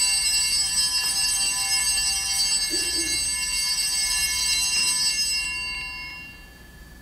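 Altar (Sanctus) bells ringing at the elevation of the chalice during the consecration, a bright shimmering ring of many high tones that dies away about six seconds in.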